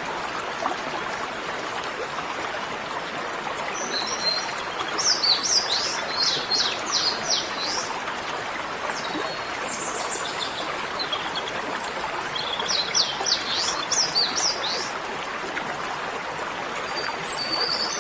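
Birds chirping in several short bursts of quick, high, down-slurred notes over a steady background hiss.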